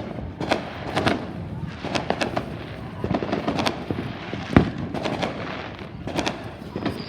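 Fireworks going off: a string of sharp bangs and crackles at irregular intervals, the loudest bang about four and a half seconds in.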